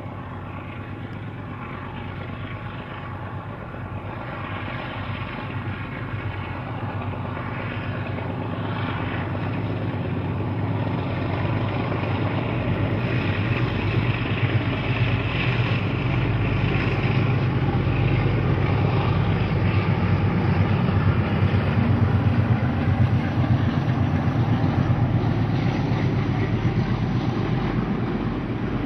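Twin Alco diesel locomotives of the NSW 44 class, each with a V12 engine, hauling a passenger train under load with heavy exhaust smoke. The steady engine note grows louder as they approach, peaks about two-thirds of the way through, and eases slightly near the end.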